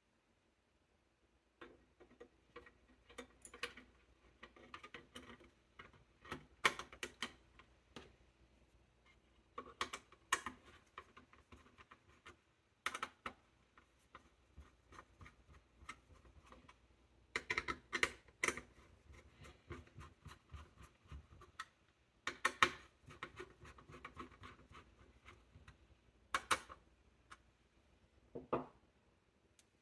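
Irregular clicks, taps and light scraping as the small parts of a Lenovo M910q tiny desktop are handled during a CPU upgrade, with several louder clusters of clicks.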